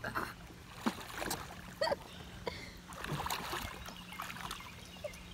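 Water splashing and sloshing around a Crescent LiteTackle sit-on-top kayak as a swimmer hauls himself onto its side, with scattered knocks and bumps against the hull.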